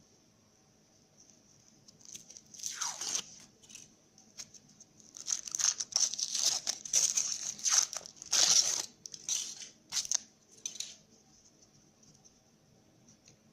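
Foil wrapper of a Kinder Surprise egg crinkling and tearing as it is unwrapped by hand, in a run of short rustles that begins about two seconds in and stops a couple of seconds before the end.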